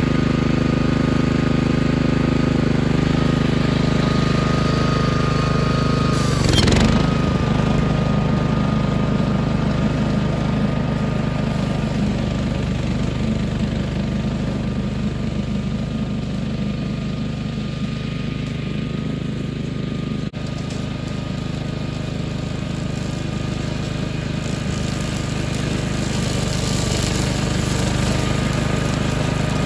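Billy Goat hydraulic-drive brush hog's small gas engine running steadily under load as it cuts through tall weeds and brush, with a brief loud noise about seven seconds in. The engine grows fainter as the machine moves away and louder again near the end as it comes back.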